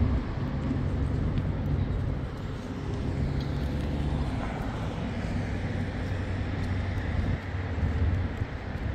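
Downtown street traffic: a motor vehicle's engine running with a low, steady hum over the general noise of city traffic.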